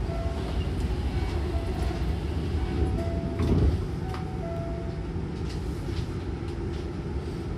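Hankyu train's double sliding doors closing, shutting with a heavy thump about three and a half seconds in, over a steady low rumble.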